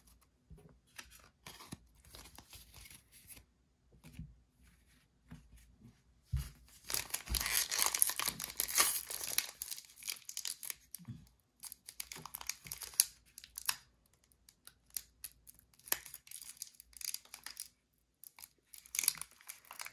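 Soft shuffling and tapping of a stack of trading cards, then a plastic trading-card pack wrapper torn open and crinkled, loudest from about six seconds in, with shorter crinkles after.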